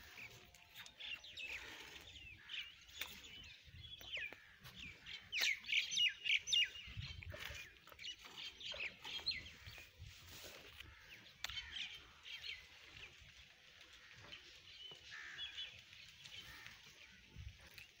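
Birds chirping in many short, rapid calls, busiest and loudest about five to seven seconds in.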